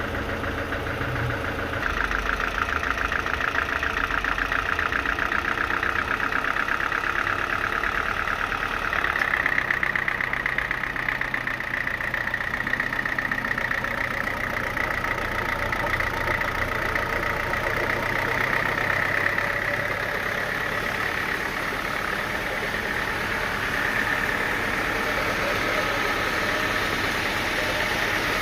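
Sawmill machinery running steadily: a motor's rumble with a high whine over it that steps up in pitch about nine seconds in.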